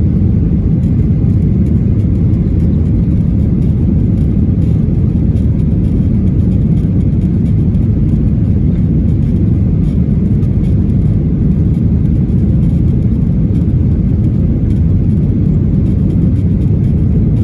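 Steady low rumble of a jet airliner's cabin in flight: engine and airflow noise heard from inside the passenger cabin.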